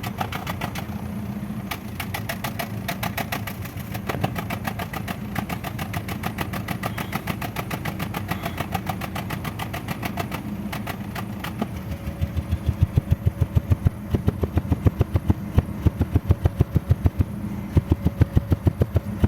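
Engine idling with a misfire, running unevenly. About twelve seconds in, loud regular pulses, several a second, come in over the running engine.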